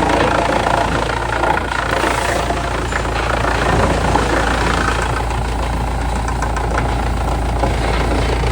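Heavy machine's engine running steadily, a deep low rumble under dense mechanical noise, with scattered clicks and knocks in the second half.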